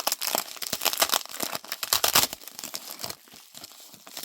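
Packaging wrapped around a knife being crumpled and torn open by hand, a dense crinkling with sharp crackles that dies down about three seconds in.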